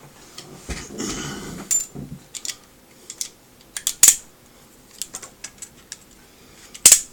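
Small tools prying at the plastic parts of a video-glasses display unit: a short scraping about a second in, then scattered clicks, with a sharp snap about four seconds in and a louder one near the end.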